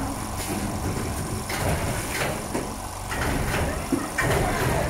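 Comforter rolling and packing machine at work. There is a low mechanical rumble with irregular clunks and rustles as a duvet is rolled and pushed into a plastic sleeve.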